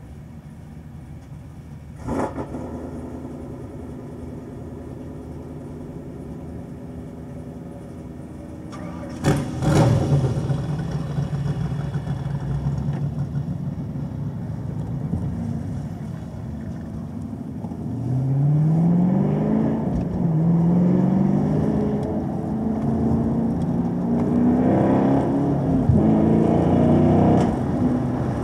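Chevrolet Camaro SS 1LE's 6.2-litre V8 idling, with a brief loud surge about nine seconds in. From about eighteen seconds in it accelerates hard, its pitch climbing, falling at a gear change and climbing again.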